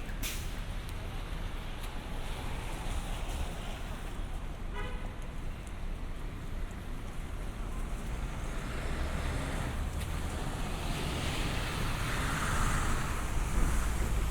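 City street traffic: a steady hiss of tyres on wet pavement over a low engine rumble, swelling near the end as a vehicle passes close. A brief high chirp sounds about five seconds in.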